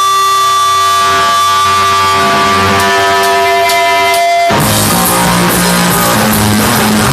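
Live rock band: sustained guitar tones ring with a few light taps, then the full band with guitars and drums comes in loudly about four and a half seconds in.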